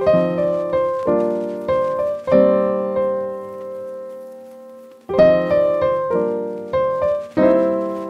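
Background piano music: a phrase of struck notes and chords, then a long chord left to fade from about two seconds in, and a new phrase beginning about five seconds in.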